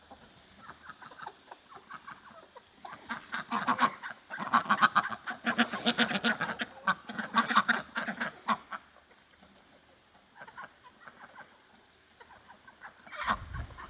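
A flock of chickens clucking in a rapid, busy chorus as scratch feed is thrown to them, loudest in the middle and thinning out to a few scattered clucks after about nine seconds.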